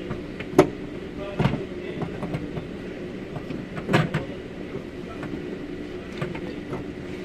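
Clicks and knocks of hands and parts working inside the hollow steel shell of a Ford Taurus front door, with three louder knocks, about half a second in, near a second and a half and about four seconds in, over a steady low hum.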